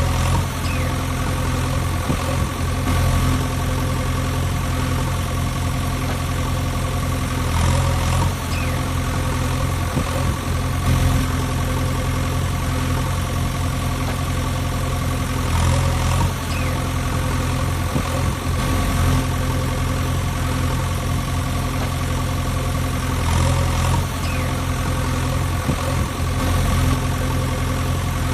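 Engine idling steadily, with a brief swell about every eight seconds.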